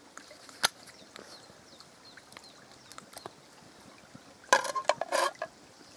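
A squeeze bottle of liquid plant-based cooking cream squirting into a frying pan in a few short spurts, about four and a half seconds in. A single click comes just under a second in.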